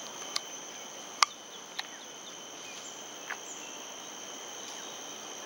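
Steady high-pitched insect drone, with a few short sharp clicks, the loudest about a second in.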